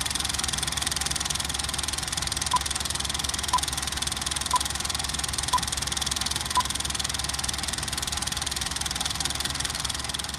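Film projector running: a steady, rapid mechanical clatter. Over it, five short beeps at one pitch, about a second apart, count down like a film leader.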